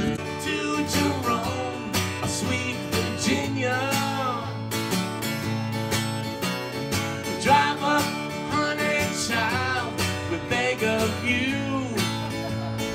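Live country-folk song: an acoustic guitar strummed and picked steadily, with a woman singing lead in short phrases over it.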